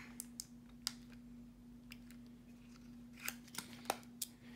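Small sharp clicks and taps of hands handling a micro SD card and a camcorder's card slot, a few near the start and a cluster about three to four seconds in, over a faint steady hum.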